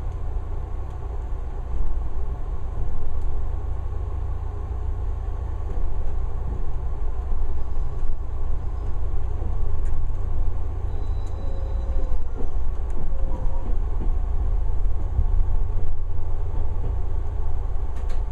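JR 383 series electric train running, heard from inside its front car as it rolls through the station points: a steady low rumble that grows slightly louder about a third of the way in, with a few faint, brief squeals partway through.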